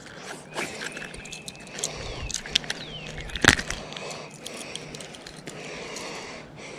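Scattered small clicks and crackles of hands handling a landed largemouth bass and freeing a crankbait's treble hooks from its mouth, with one sharper click about three and a half seconds in.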